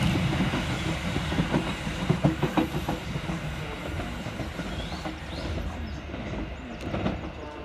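Merseyrail Class 777 electric multiple unit departing: running noise with wheels clicking over the rail joints, fading steadily as the train draws away.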